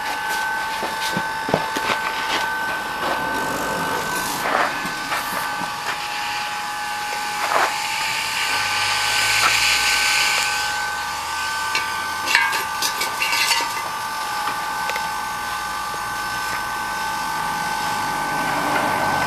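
Gas hissing with a steady high whistle as it is fed through a hose into the converted gas-cylinder chamber of a homemade spud gun. A few short clicks and knocks of handling sound over it.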